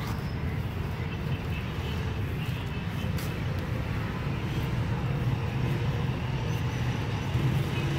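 Steady low outdoor rumble with no distinct events, like distant road traffic.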